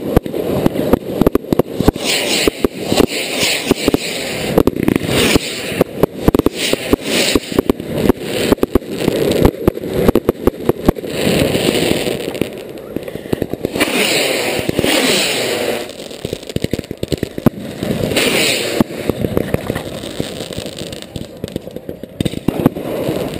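Firework rockets launching in quick succession from a rack close by: hissing whooshes several times as rockets take off, amid many sharp cracks and bangs.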